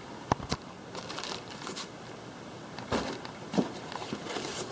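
Foam packing inserts and plastic-bagged parts being handled in a cardboard box: a few sharp knocks and clicks, with short rustles and scrapes between them.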